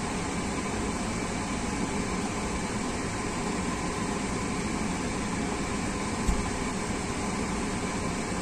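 Steady hum of a running car, its air conditioning blowing, with one brief knock about six seconds in.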